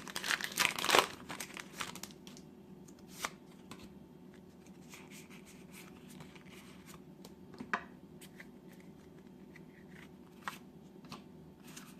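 A booster pack's wrapper being torn open and crinkled, loudest in the first second or two, then quiet handling of the cards with a few light clicks.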